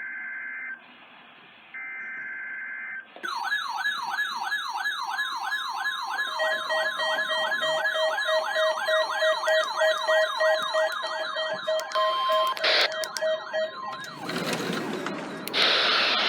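Two bursts of the NOAA Weather Radio SAME digital header, a buzzing pair of data tones. Then weather radio receivers set off their alert alarms: a warbling siren about three times a second with steady beeping tones under it. Near the end comes a burst of static, then hiss with a steady tone.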